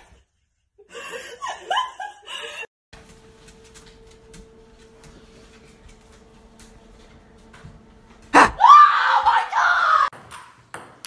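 A sudden bang, then a person screaming in fright for about two seconds, the loudest sound here. Before it come brief laughter and a faint steady hum.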